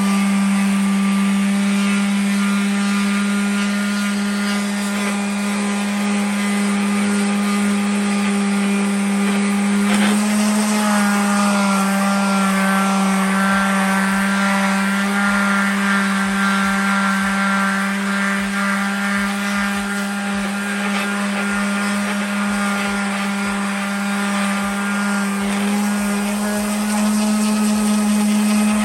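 Electric power tool motor running steadily with a constant whine. Its pitch shifts slightly about ten seconds in and again near the end, as the load changes.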